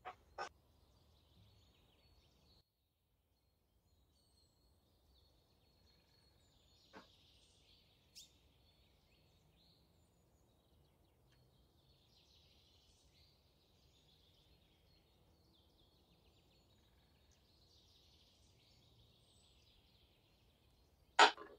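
Quiet kitchen handling sounds: a few soft knocks of cookware and utensils, and one sharp knock just before the end, over a faint high hiss.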